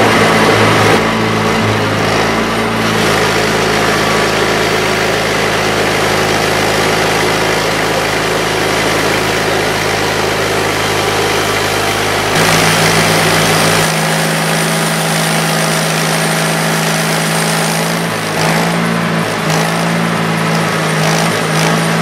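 Mighty Mite band sawmill running under load as its blade cuts the first slab off a yellow cedar log, the engine holding a steady note that shifts about twelve seconds in.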